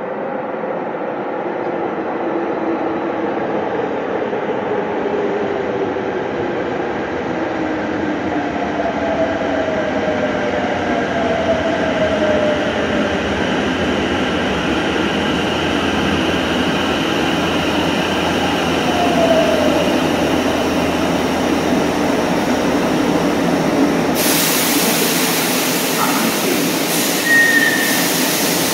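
Subway train approaching through the tunnel, growing steadily louder, with slow falling whines. A loud hiss sets in about 24 seconds in.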